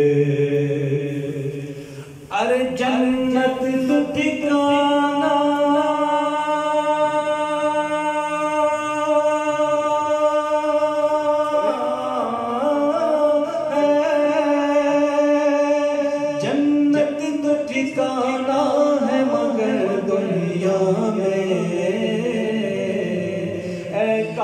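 A man singing an Urdu devotional naat unaccompanied, in long drawn-out ornamented phrases. After a short breath about two seconds in, he holds one note for about seven seconds before moving on through winding runs.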